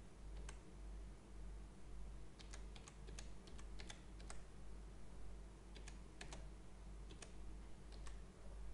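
Faint typing on a computer keyboard: a few scattered key presses, then two short runs of quick taps, over a low steady hum.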